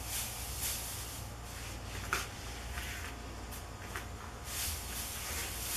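Plastic cheerleading pom-poms rustling in a series of soft swishes as they are handled, over a low steady hum.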